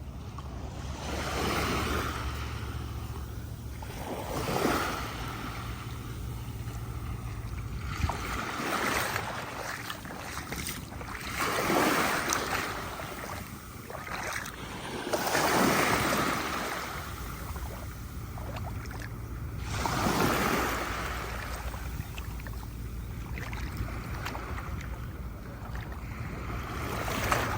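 Small waves breaking and washing up on a beach, swelling and fading every few seconds, with a low rumble of wind on the microphone.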